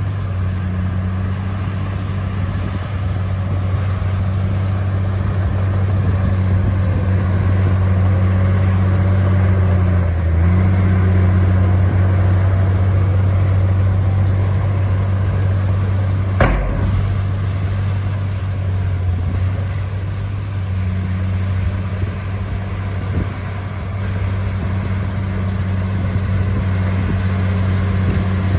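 Diesel engine of a Komatsu bulldozer running steadily with a low drone, its note shifting briefly about ten seconds in. A single sharp click a little past halfway.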